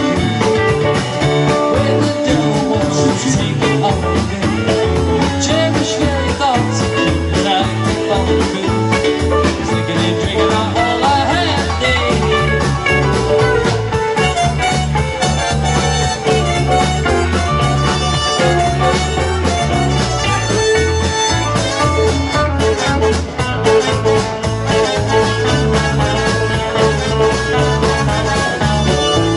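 Rock band playing country-rock music with guitars, bass and drums at a steady beat.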